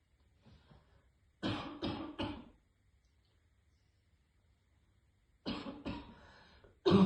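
A woman's harsh barking cough. A run of three coughs comes about a second and a half in; after a pause, two more come near the end, and a louder fit starts just at the end.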